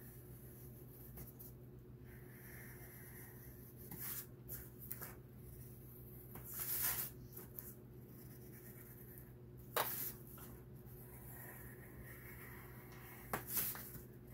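Pencil scratching on paper in short, faint strokes as outlines are traced over, over a low steady hum.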